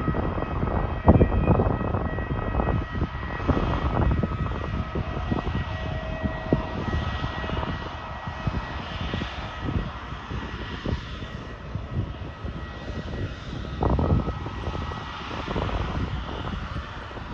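Airbus A320 turbofan engine during its start: a steady whine of several fixed tones over a low rumble that swells and fades, louder about a second in and again near the end.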